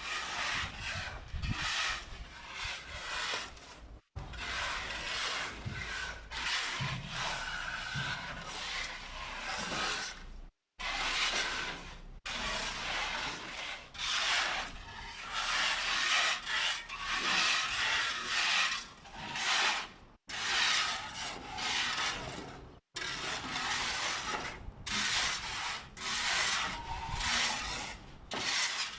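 Plastering tool scraping and rubbing across a wall surface in repeated rasping strokes, about one to two a second, cutting out abruptly several times.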